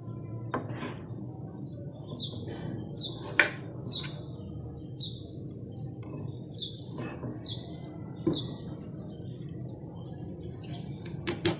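A small bird chirping: a run of short, high, falling chirps repeated about once a second, with a few sharp knocks in between.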